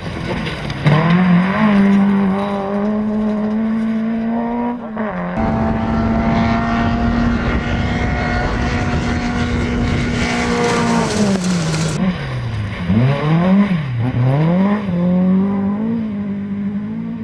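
Historic rally car engines at high revs on a stage: one note held steady for long stretches, then in the last few seconds a run of quick rev drops and climbs through gear changes. The sound breaks off abruptly twice as one car gives way to another.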